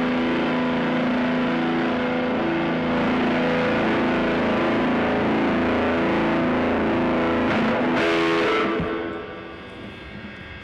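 Dense, distorted drone-noise music: sustained guitar-like tones held over a thick hiss. About nine seconds in it drops sharply to a quieter, thinner texture.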